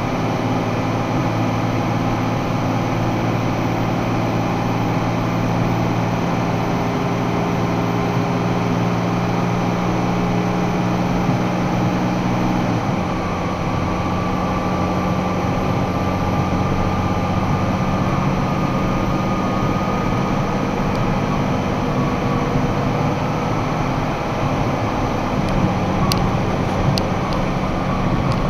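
Box truck's engine and road noise heard from inside the cab while it accelerates at highway speed, a steady drone whose engine note changes about halfway through and again near the end. A few faint clicks near the end.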